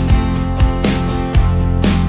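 Instrumental background music with a steady beat of about two strikes a second.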